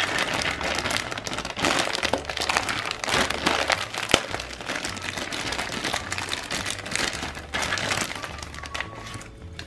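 Clear plastic bag crinkling continuously as hands open it and handle the plastic sand molds inside, with many small crackles and clicks.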